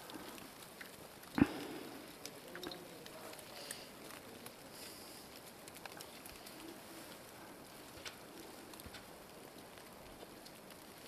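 Quiet background hiss with one dull thump about one and a half seconds in, and a few faint ticks scattered through.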